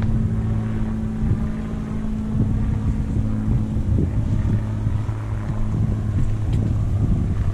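Wind buffeting the microphone as a low, uneven rumble, with a steady low hum underneath that fades out near the end.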